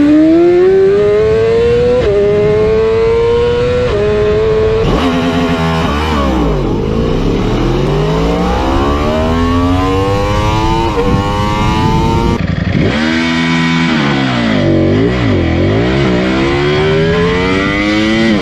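Motorcycle engines revving and accelerating. The pitch climbs and drops sharply twice in the first few seconds, then falls and rises again several times.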